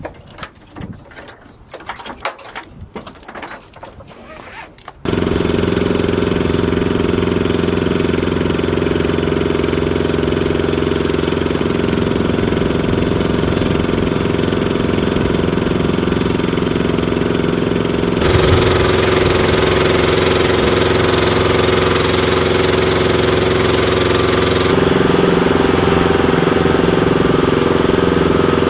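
A few light knocks and clatters, then about five seconds in a loud, steady engine drone with several fixed pitches starts and runs on.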